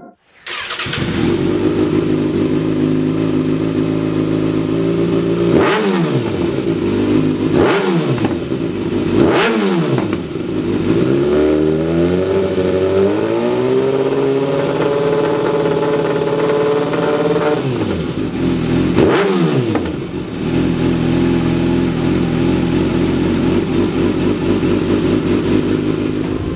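2014 Kawasaki ZX-6R's inline-four engine running through a Lextek XP13C carbon slip-on silencer. It idles, is blipped sharply three times, is then held at raised revs for several seconds with the revs creeping up, drops back, is blipped once more and settles back to a steady idle.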